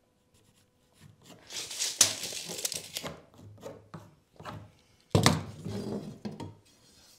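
Light scraping and knocking as 2x4 wall plates are marked out with a pencil and tape measure, then, about five seconds in, a sudden clatter and scrape as a long metal straightedge is picked up and slid across the plywood and boards.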